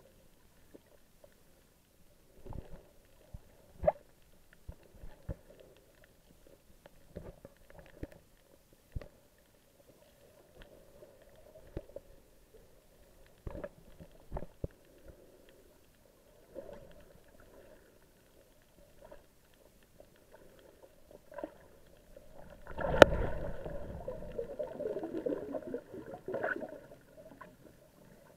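Underwater sound picked up by a camera submerged while snorkeling: a faint muffled hum with scattered clicks and knocks, then about 23 seconds in a sudden loud rush of water and bubbling that lasts a few seconds.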